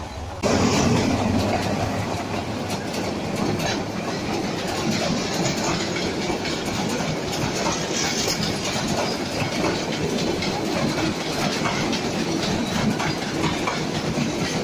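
Bangladesh Railway intercity passenger coaches rolling past close by: a steady rumble of wheels on rails with rapid clickety-clack clicks, starting abruptly about half a second in.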